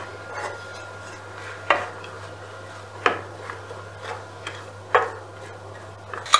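Dishes and cutlery being handled: a handful of separate short clinks and knocks, spaced a second or more apart, over a faint steady low hum.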